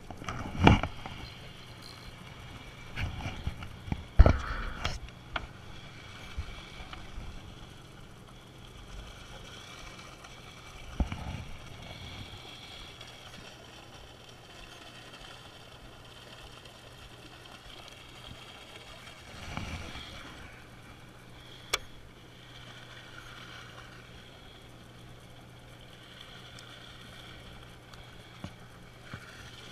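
Steady low hum of a fishing boat's engine with faint water and wind noise, broken by a few short sharp knocks and clicks, the loudest about four seconds in.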